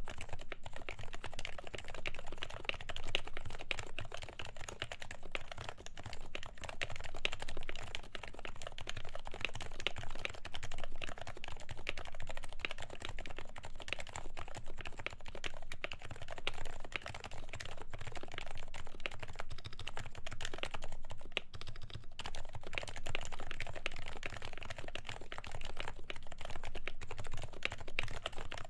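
Continuous fast typing on a Happy Hacking Keyboard Professional with 45 g Topre electro-capacitive switches, lubed and fitted with silencing rings, giving a dense run of soft keystroke clicks.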